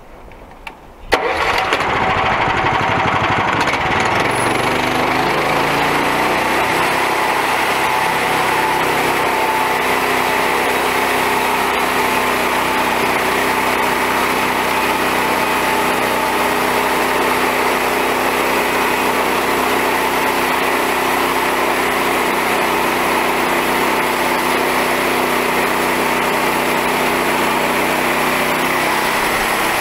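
Small gasoline engine on a homemade band saw sawmill starting, catching about a second in, then running steadily under load as the mill saws through a log.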